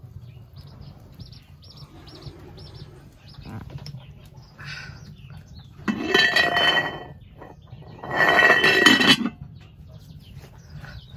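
A farm animal calls twice, each call pitched and about a second long, the second following the first after about two seconds. Faint high chirps repeat earlier on.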